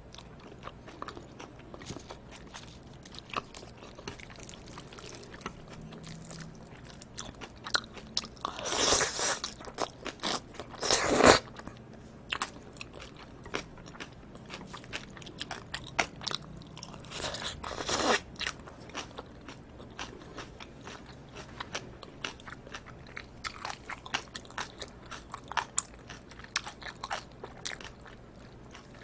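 Close-miked eating sounds of a person chewing live octopus and cold bibim noodles: a steady run of small wet mouth clicks, with three louder, longer rushes about nine, eleven and eighteen seconds in.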